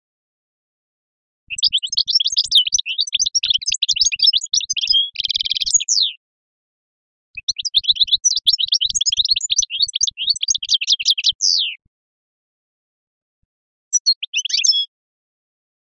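A songbird singing in two long phrases of rapid twittering chirps. The first has a short buzzy trill and both end on a downward-sliding note. A brief snatch of song follows near the end.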